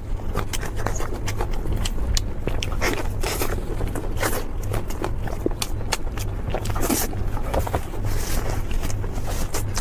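Close-miked chewing of crispy food: many sharp crunches and crackles in quick, irregular succession, over a steady low hum.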